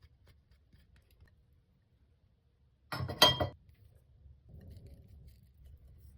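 A single brief clink with a short ringing tone, like glass or crockery knocked or set down, about three seconds in, over a faint low hum.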